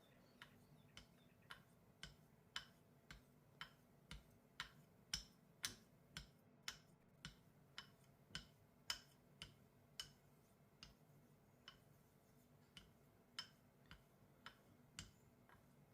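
Straight razor being honed on a convex Japanese natural whetstone: a run of light clicks about two a second, each as the blade is flipped over on its spine at the end of a stroke. The clicks slow to about one a second for a while past the middle.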